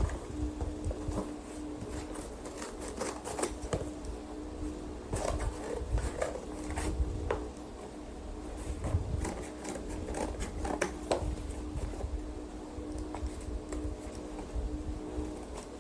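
Irregular clicks and knocks of small objects being handled, over a steady low electrical hum and rumble.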